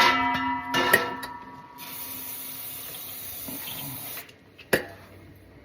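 Two ringing metal clanks, then an aerosol can of brake cleaner sprayed in one steady hiss for about two and a half seconds that stops abruptly, followed by a single sharp knock.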